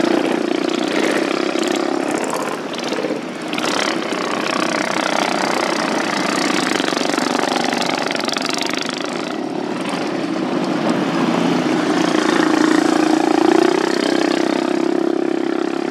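Small flathead engines of racing lawn mowers running hard around a dirt track, their sound swelling and fading as the mowers pass, dipping about three seconds in and rising again near the end.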